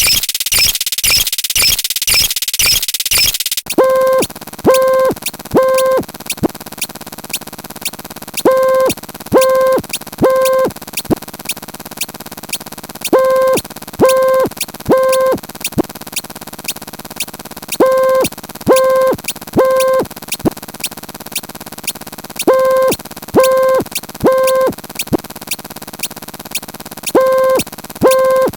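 A cacophony of stacked electronic sound effects. A dense pulsing noise changes abruptly about three and a half seconds in to a steady hiss with rapid regular ticking. Over this, a set of three short beeps, about a second apart, repeats every few seconds.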